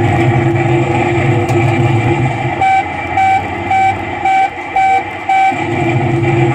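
R.G. Mitchell 'Mitch the Dumper Truck' kiddie ride playing a steady truck-engine sound effect through its speaker. About two and a half seconds in the engine sound drops back for six short electronic beeps, about two a second, then comes back near the end.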